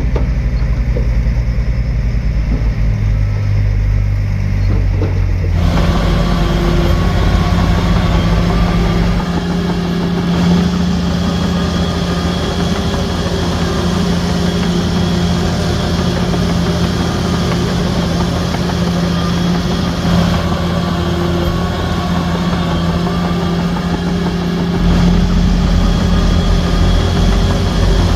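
Heavy diesel earthmoving machinery running: a bulldozer and dump trucks at work. About five seconds in the sound becomes fuller, with a steady engine drone and more clatter on top.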